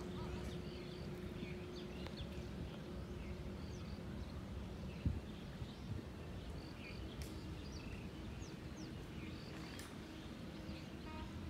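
Scattered small-bird chirps, short and high, over a steady low hum in the background, with one soft thump about five seconds in.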